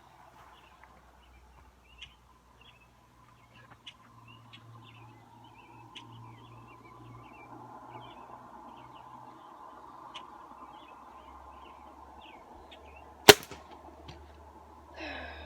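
A single sharp gunshot about thirteen seconds in, a shot at a blackbird perched in a tree. Small birds chirp faintly throughout.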